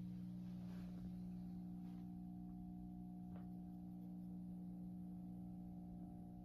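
Quiet steady electrical hum, with a few faint clicks about one, two and three and a half seconds in.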